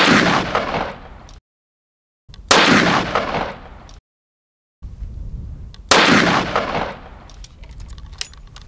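Three heavy rifle shots from a Searcy double rifle in .470 Nitro Express, each a sharp blast that trails off over about a second. Near the end come a few metallic clicks as the action is broken open.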